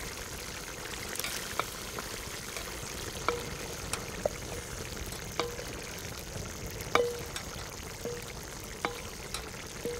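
Beef goulash simmering in a pot over an open fire: a steady sizzling hiss with about a dozen scattered sharp pops, as cut okra pods are tipped in.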